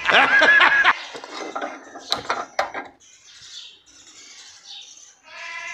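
Loud, high-pitched animal calls in the first second, then a few scattered clicks and knocks over faint background.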